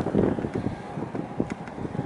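Gusty wind buffeting the microphone, strongest just after the start, with a few faint ticks over it.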